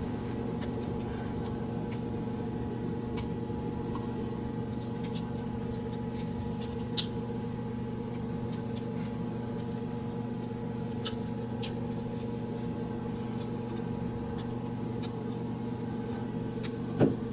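Steady hum of several level tones, with a few faint light clicks and taps from small plastic and foam helmet parts being handled.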